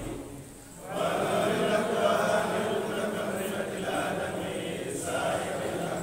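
Congregation of men chanting together, a continuous collective chant that starts about a second in after a short lull.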